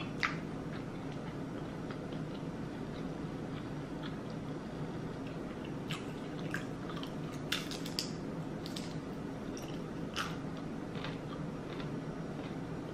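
Close-miked chewing of crispy breakfast food, with scattered small crunches and mouth clicks over a low steady hum.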